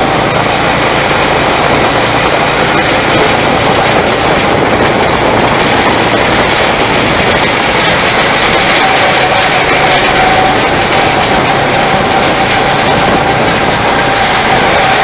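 Go-kart engine running steadily at speed, heard from onboard the kart, under a loud, constant rush of noise with a steady engine note.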